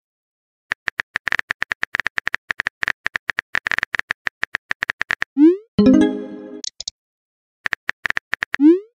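Rapid keyboard-tap clicks from a texting app's typing sound for about four and a half seconds. Then comes a rising swoosh and a short musical chime as a message arrives, a few more taps, and another rising swoosh near the end.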